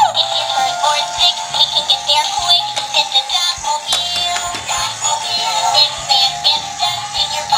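A toy's electronic song with synthetic sung vocals, played through a small speaker: thin, with almost no bass.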